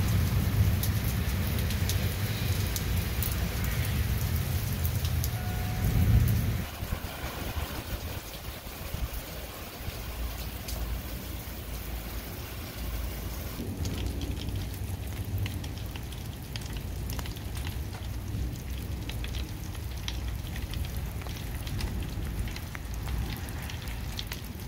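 Rain and water dripping onto wet, hail-covered ground: a steady hiss with many small drop ticks. A low rumble sits under it for the first six seconds or so, then stops suddenly.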